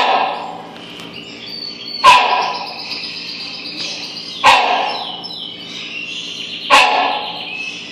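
Rhinoceros hornbill barking: four short, loud barks, about one every two and a quarter seconds.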